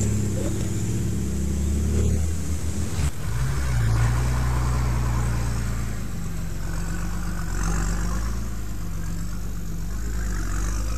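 4WD engines at low revs as a Toyota LandCruiser 100 series and then a Nissan Patrol GU crawl over timber planks laid on a sandy track. The engine note shifts about two and three and a half seconds in, with a single knock about three seconds in.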